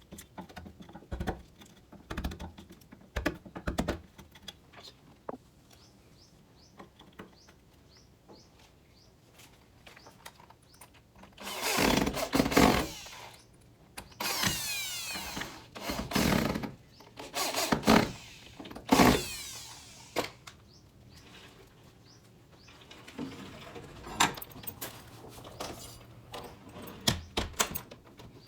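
A power drill run in several short bursts, its motor pitch sliding as it speeds up and slows, with clicks and taps of handling before and after.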